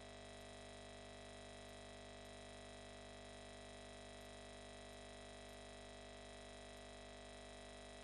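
Near silence: a faint, perfectly steady hum that neither rises nor falls, with no other sound.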